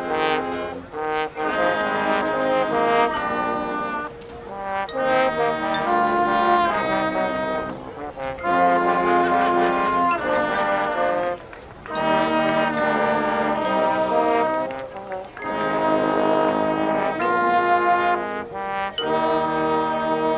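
A marching band's brass section plays loud held chords in short phrases, with sharp drum and cymbal hits.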